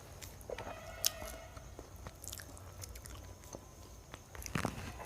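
Eating sounds: chewing and biting into homemade chilli chicken, with scattered small clicks, one sharp click about a second in and a short cluster of knocks near the end.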